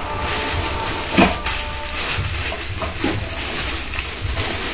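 Clear plastic film crinkling and rustling as wrapped stainless steel pots are handled, with scattered small crackles.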